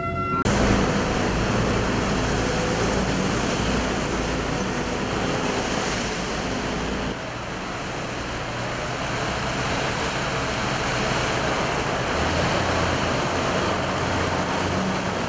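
Steady roar of heavy tunnel-construction machinery running, with a low engine hum; the sound shifts about seven seconds in.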